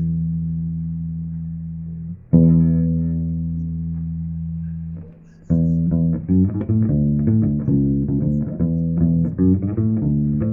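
Electric bass guitar: a held note rings and fades, a second is struck about two seconds in and left to ring, then a quick run of notes starts about five and a half seconds in.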